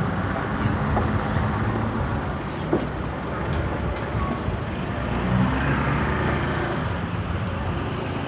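Road traffic noise with a heavy vehicle's engine running steadily.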